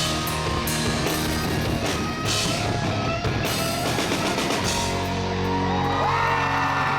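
Live rock band playing with drums and electric guitar, a melodic line sliding up and down over the beat.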